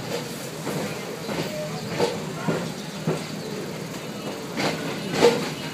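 Passenger train coach running along the track: a steady rumble with irregular clacks and knocks of the wheels over rail joints, the loudest knock about five seconds in.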